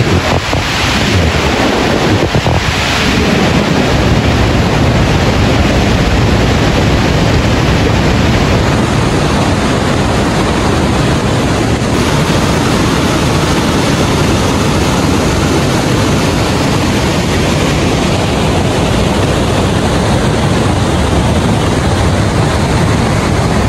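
Loud, steady rushing of white water pouring over boulders in a mountain river.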